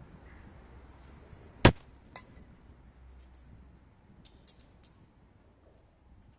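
Fishing magnet giving a sharp metallic clang about one and a half seconds in, followed by a smaller click and a few faint metallic ticks.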